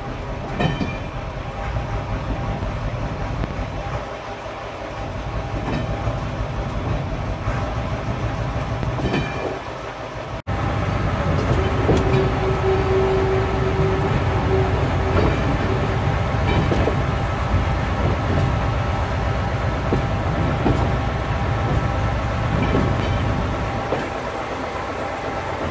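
Small heritage train running slowly over jointed track, heard from on board: a steady rumble with wheels clicking over the rail joints. There is an abrupt break about ten seconds in, after which it is louder, and shortly after that a steady note is held for about two seconds.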